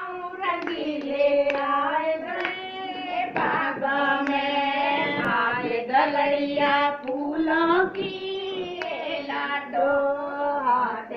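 Women singing a Haryanvi folk song (lok geet), with a few hand claps.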